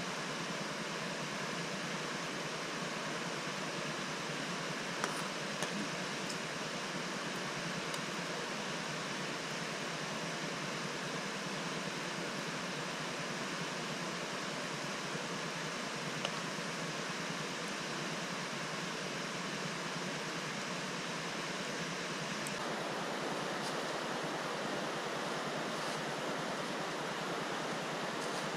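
Steady rushing of flowing river water, with a few faint clicks; the noise shifts abruptly about three-quarters of the way through.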